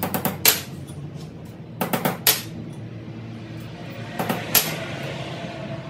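Sharp metallic knocks and clanks in three quick clusters about two seconds apart, like metal tools or parts striking each other on a workbench, over a steady low hum.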